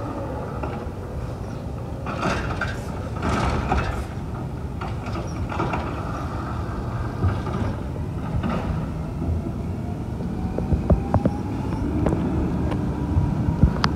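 Garbage truck engine running steadily, with several short bursts of hissing in the first half and a few sharp clanks near the end.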